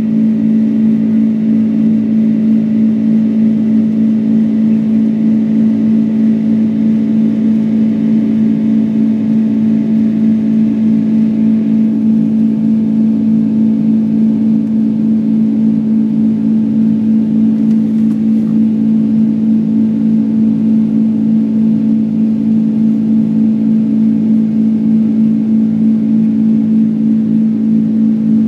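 Boeing 747-200's jet engines and rushing air heard inside the passenger cabin during the climb after takeoff: a loud, steady drone with a strong low hum that holds an even pitch.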